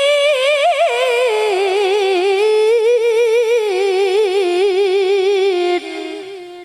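A young female Quran reciter's (qariah's) voice in melodic tilawah, amplified through a hand-held microphone: one long ornamented phrase, wavering and stepping down in pitch, that breaks off about six seconds in and fades.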